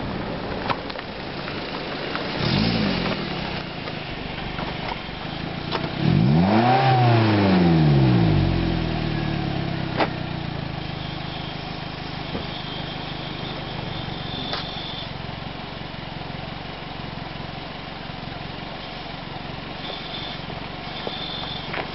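Car engine idling through a 5zigen aftermarket exhaust and revved twice: a short blip about two and a half seconds in, then a longer, louder rev around six to eight seconds in. Each rev rises in pitch and falls back to a steady idle.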